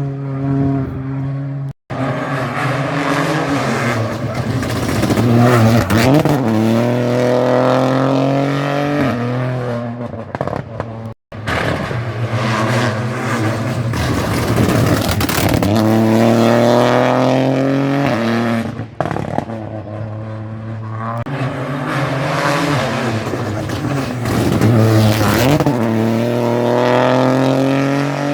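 Rally cars at full throttle on a closed stage, their engine note climbing through each gear and dropping at every upshift, again and again. The sound cuts off abruptly about two seconds in and again about eleven seconds in, as one car's run gives way to the next.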